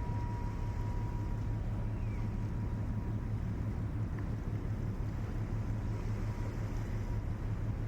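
Diesel engine of an inland cargo vessel giving a steady low hum on the river, with a faint thin whine above it.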